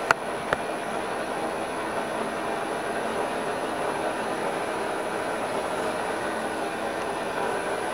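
Vectrax GS-20 vertical milling machine running with its spindle turning: a steady mechanical hum with whining tones. Two sharp clicks come about half a second apart near the start.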